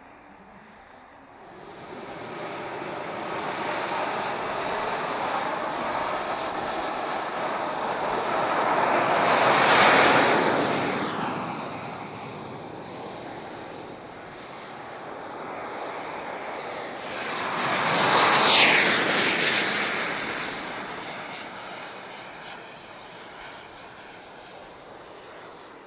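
Radio-controlled model aircraft flying two close passes: its engine noise swells to a peak about ten seconds in and again near eighteen seconds, dropping in pitch as it goes by each time, with a thin high whine throughout.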